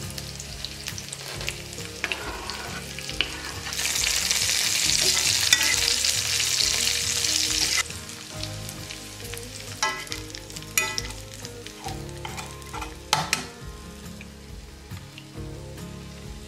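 Diced sweet potato and onion frying in oil in a cast iron skillet, sizzling steadily. The sizzle is much louder from about four to eight seconds in. A few sharp knocks in the pan come later in the stretch.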